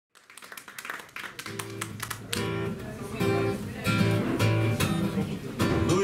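Acoustic guitar strummed in a steady rhythm of chords, fading in from silence over the first second or so.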